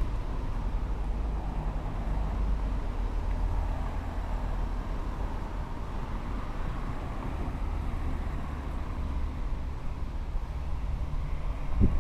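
Steady low rumble, like a vehicle running, heard through an action camera's microphone, with a brief knock just before the end.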